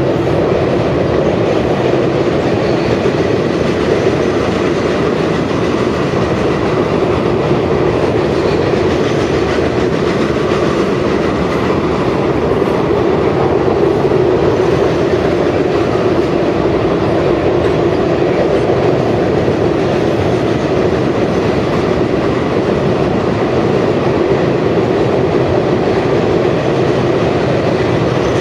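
Covered hopper grain cars rolling steadily across a steel truss railroad bridge: a constant, even rumble of wheels and cars on the span.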